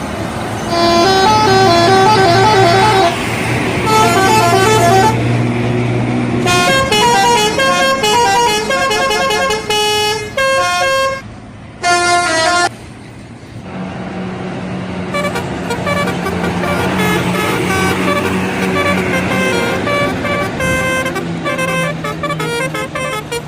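Indonesian bus telolet horns playing quick multi-note tunes, one tune after another, over the low sound of a bus engine. There is a brief lull about thirteen seconds in before another horn tune starts.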